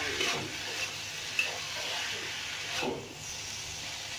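Spatula stirring and scraping stir-fried jengkol and tempe around a wok, over a steady sizzle of frying, with a few short scrapes standing out.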